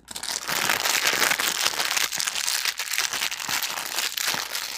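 A bag being crumpled and crinkled right next to a wireless lavalier microphone: a continuous dense crackle of many small sharp rustles. It is a noise test of the mic with its noise cancellation switched on.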